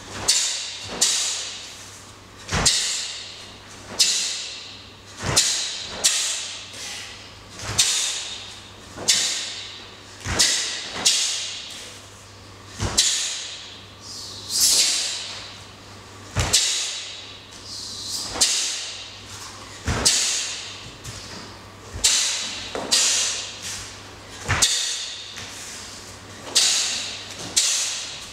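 Sharp snaps and swishes of a heavy taekwondo uniform with thuds of feet on foam mats, one with each technique of the pattern, just under one a second. Each snap trails off in a short hiss, over a low steady hum.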